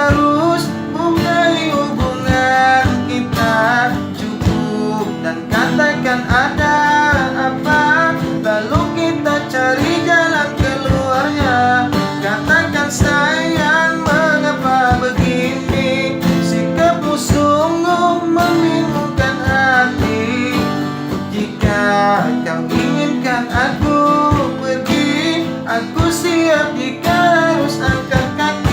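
Busker's acoustic guitar strummed steadily while a voice carries the song's melody over it.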